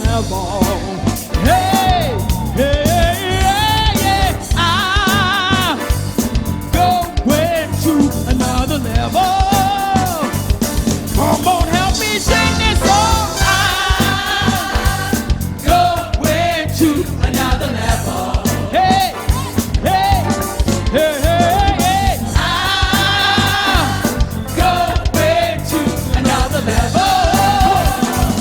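Church praise team singing a worship song with instrumental accompaniment.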